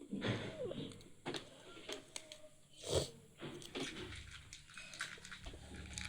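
Scattered small clicks, taps and rustles of things being handled, with a short louder noise about three seconds in.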